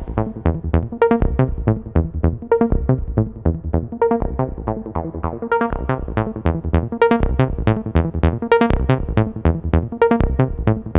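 Electronic background music: a quick, steady run of short plucked synthesizer notes over a low bass pulse, with no cymbals or high percussion.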